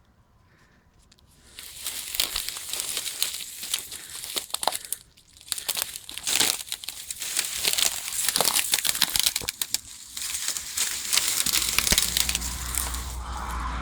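Loud rustling and crackling noise close to the microphone, with many sharp clicks, starting about a second and a half in and swelling and dropping away unevenly. A low rumble joins it about two seconds before the end.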